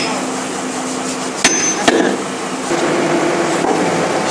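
Sledgehammer driving a steel anchor pin through the base plate of a horizontal directional drilling rig: two ringing metal-on-metal blows about half a second apart. After that, a little past halfway, a steady engine hum from the rig's power unit takes over.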